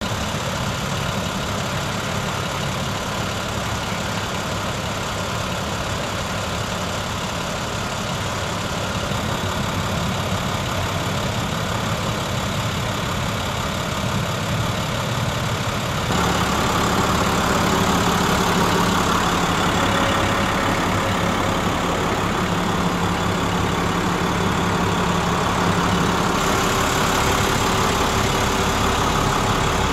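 International box truck's diesel engine idling steadily. It gets louder and fuller about halfway through.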